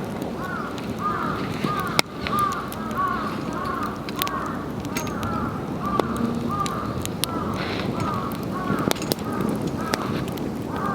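A flock of birds calling over and over, with many short overlapping calls, above a wood campfire crackling with scattered sharp pops.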